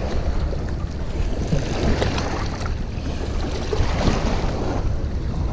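Wind buffeting the microphone over small river waves lapping and splashing against the rocks at the water's edge.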